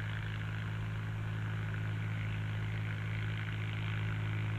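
Ford tractor engine running steadily, a low, even drone that does not change in pitch or level.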